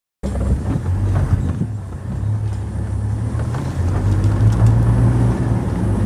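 Off-road safari vehicle's engine running steadily with a low hum as it drives through the bush.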